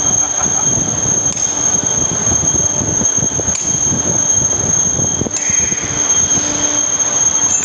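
Steady high-pitched whine over continuous rumbling machine noise, with a few faint clicks about two seconds apart.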